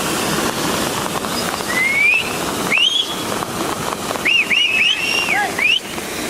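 Short whistled notes, each a rising or arching glide, over a steady rush of flowing water. Single notes come about two and three seconds in, then a quick run of several near the end.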